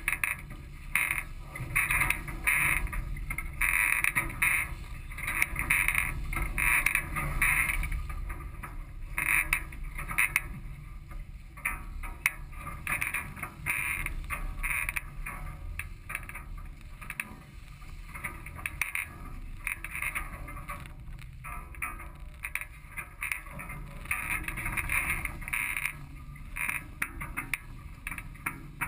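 Wind buffeting the microphone and water rushing and splashing along the hulls of a sailing catamaran under way, rising and falling unevenly with the gusts and waves.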